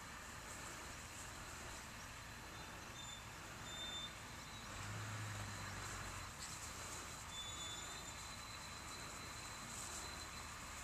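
Faint outdoor ambience: a steady high insect drone with a few short high chirps, and a brief low hum about halfway through.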